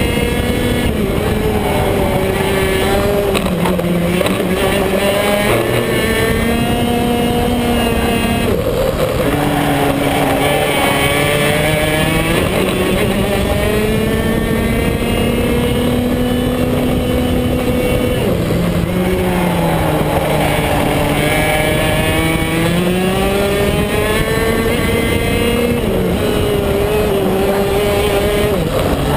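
BMB KF2 125 cc two-stroke kart engine at racing speed, heard onboard. Its pitch climbs steadily along the straights and falls off quickly a few times as the kart slows for corners.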